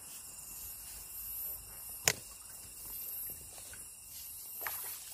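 Night insects chirping high and thin in regular pulses, with one sharp click or knock about two seconds in and a softer one near the end.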